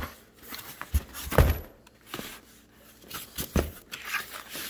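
Handling of a small cardboard parts box among packing paper: a series of separate knocks and thuds with light rustling, the loudest thud about a second and a half in.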